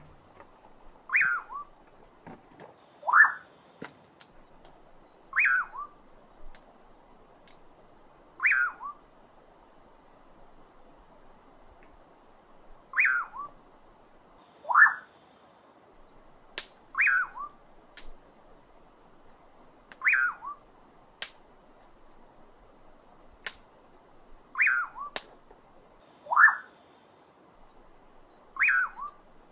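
A bird repeats a short call every two to three seconds, each a quick falling note, sometimes followed by a second one. Under it runs a steady, faint, high insect-like buzz, with a few sharp clicks scattered through.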